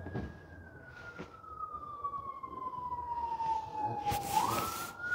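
A single siren-like whistling tone that slowly falls in pitch for about four seconds, then sweeps quickly back up to its starting pitch, with a brief rustle near the end.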